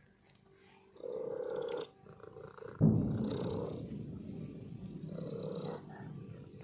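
Domestic cat purring close to the microphone. A short purr comes about a second in, then a louder, longer rumbling purr starts suddenly about three seconds in and slowly fades.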